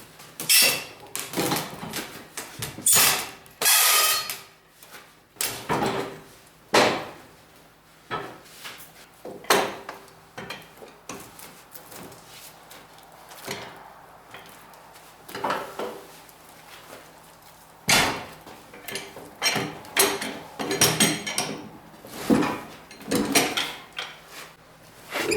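A long run of irregular knocks, clunks and rattles from metal and wood being handled, with a quieter stretch about halfway through.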